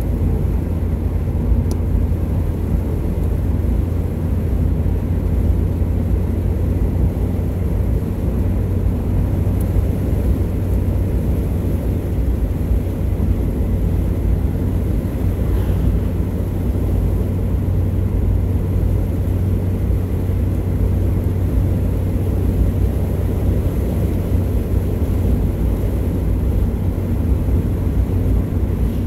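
Steady low rumble of a car driving at road speed, heard from inside the cabin: tyre, road and engine noise.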